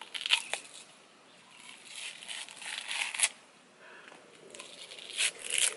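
A person biting and chewing food, with crunching, tearing bites in several bursts: near the start, around two to three seconds in, and again near the end.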